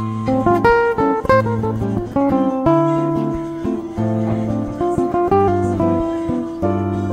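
Background music: a plucked acoustic guitar tune with a melody of quick notes over a repeating bass line.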